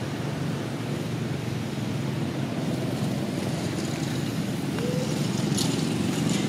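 Steady low rumble of a running motor vehicle engine.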